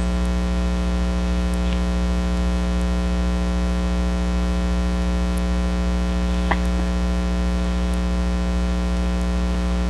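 Steady electrical hum with a stack of evenly spaced tones, like mains hum picked up in the recording, and one short click about six and a half seconds in.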